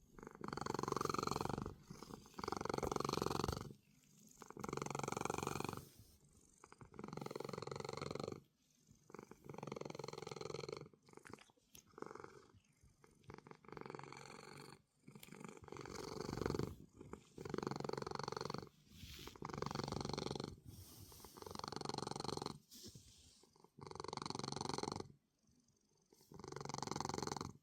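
A cat snoring: a rumbling with each breath, about one every two seconds, with short pauses between breaths.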